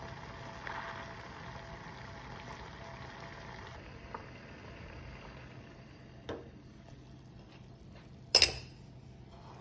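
Water, butter and salt bubbling at a rolling boil in a steel saucepan over a gas burner, with the burner's hiss. The steady noise drops away about four seconds in as the gas is turned off, followed by a few light clicks and one loud sharp clink near the end.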